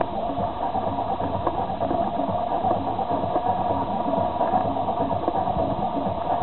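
A steady electric buzzing hum with a fast, even throb, holding level throughout and stopping abruptly at the end.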